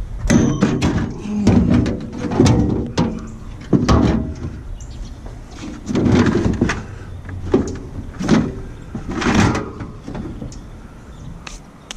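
Scrap metal being handled and loaded into a pickup bed: a series of irregular clanks, knocks and scrapes, some ringing briefly.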